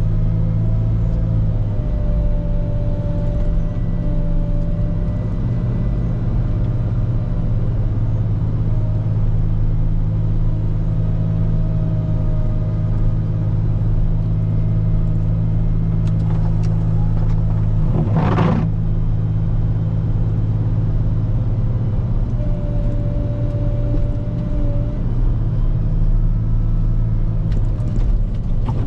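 Volvo L90H wheel loader's diesel engine running steadily under load while plowing snow, with a faint whine that comes and goes. About two-thirds of the way through there is a short burst of higher-pitched noise.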